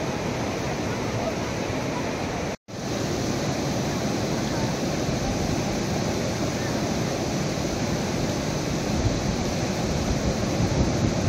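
Swollen, fast-flowing floodwater rushing steadily around a stranded truck, with gusts of wind on the microphone near the end. The sound cuts out for a split second about two and a half seconds in.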